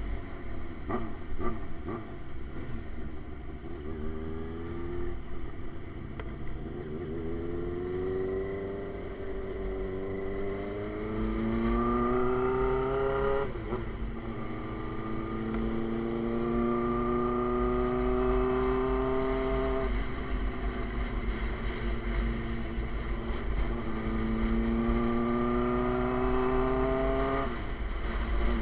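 Suzuki GSX-R sport bike with an SC Project aftermarket exhaust, riding and accelerating through the gears. The engine pitch climbs steadily and drops sharply at an upshift about halfway through. It climbs again, eases off, and rises once more to another upshift near the end, over a low wind rumble.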